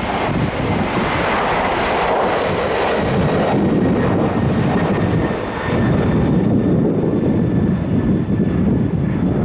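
Jet airliner passing, its engine noise shifting from a higher hiss in the first few seconds to a deeper rumble in the second half, with a faint whine that slowly drops in pitch.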